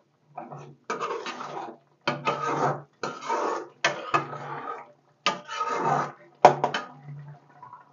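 Metal spoon scraping and knocking against a metal kadai while stirring thick tomato masala: about six scraping strokes with short pauses, several starting with a sharp clink.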